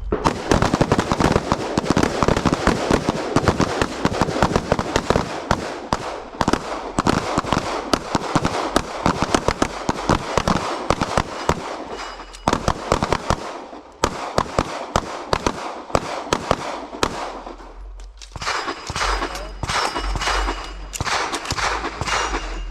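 Rapid gunfire from several shooters firing rifles and pistols at once, shots overlapping densely for about fourteen seconds, then thinning into separate strings of shots with short pauses between.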